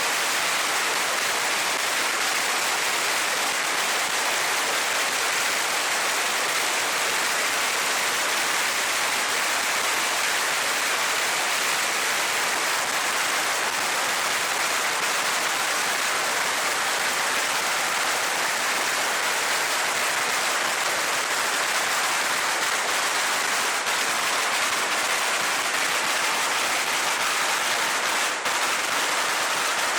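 Long string of firecrackers going off in a continuous, dense crackle so rapid that the separate bangs run together into a steady din, with a brief dip near the end.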